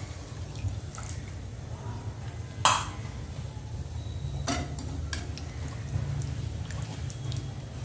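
A steel ladle clinking against a metal kadhai while stirring a thin, watery curry, with one loud sharp metal clank about two and a half seconds in. A steady low hum runs underneath.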